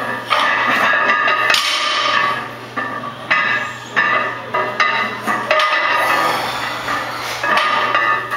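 Steel barbell and weight plates clanking together several times, each strike ringing on, over a steady low hum.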